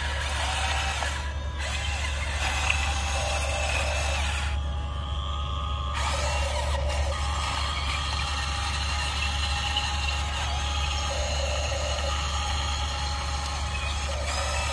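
Electric motors and gearboxes of toy RC excavators whirring and whining as they drive on their tracks and work their booms, the whine changing pitch every few seconds.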